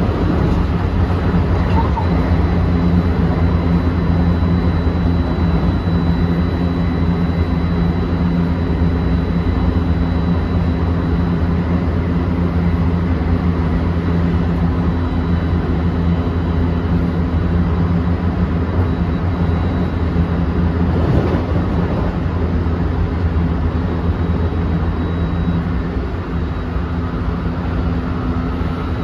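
Interior running sound of a JR West 223 series 2000 EMU motor car at speed: steady wheel-and-rail rumble with the even hum of its Toshiba IGBT-inverter-driven traction motors and a faint high steady tone.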